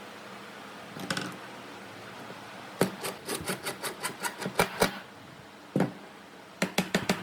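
Sharp taps on wood in quick runs of about six a second, with a brief scrape about a second in and a single knock between the runs.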